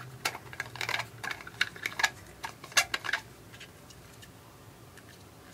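Clear plastic drinking bottle and its plastic screw cap being handled: an irregular run of light clicks and taps for about three seconds, then only a few faint ones.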